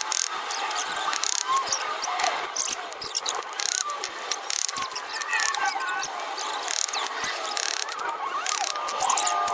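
Workshop handling noises: a dense, irregular run of clicks, knocks and short squeaky scrapes of wood and tools being handled.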